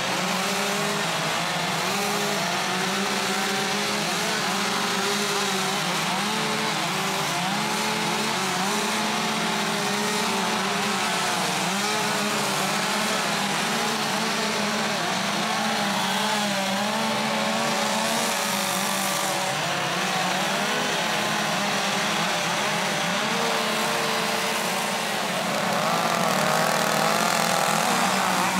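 Several chainsaws fitted with carving bars running at once as they cut wood, their engine pitches rising and falling independently. Slightly louder near the end.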